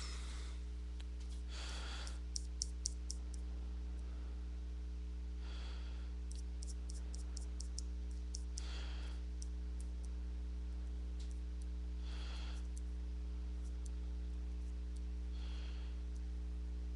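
Scattered clicks of a computer mouse, with a few louder ones about two to three seconds in. Slow breaths every few seconds, close to the microphone. A steady electrical hum underneath.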